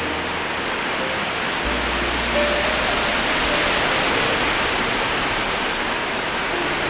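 Waterfall's water rushing in a steady, loud, unbroken wash of noise.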